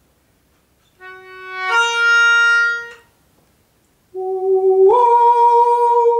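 A melodica plays two held notes, a lower one then a higher one, about two seconds in all. A man then sings the same rising two-note pair back, the higher note held to the end.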